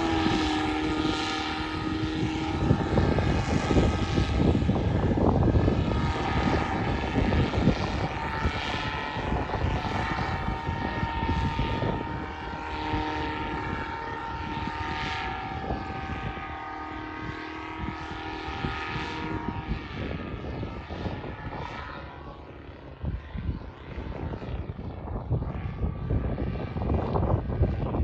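RB Mini paramotor's engine and propeller running steadily, its pitch drifting a little, with gusty wind buffeting the microphone. The engine sound dips briefly about three-quarters of the way through.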